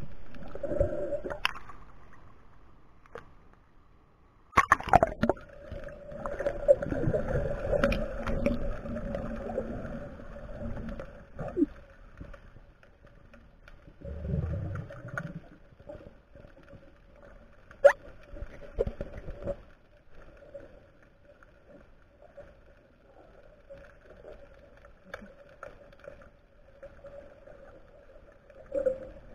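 Underwater sound picked up by a camera in a waterproof housing: muffled water churning and gurgling, with a sharp knock a few seconds in, a low rumble partway through and a click later on, over a steady faint hum.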